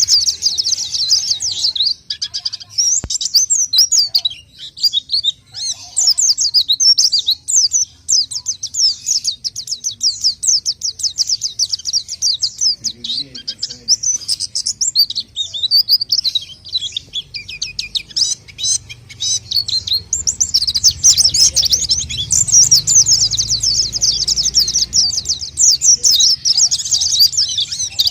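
White-eye (pleci) song used as a lure call: a rapid, continuous stream of high twittering chirps that thins out briefly a few seconds in.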